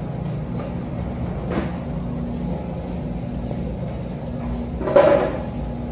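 Wire shopping cart rolling over a hard store floor, its wheels rumbling steadily and its loaded frame rattling, with a louder clatter about five seconds in.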